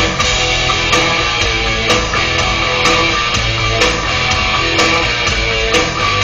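Rock music with loud electric guitar and a steady beat.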